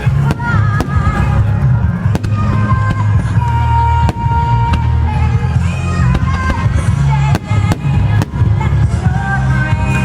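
Fireworks display: sharp firework bangs going off frequently over music with a steady bass and a held melody.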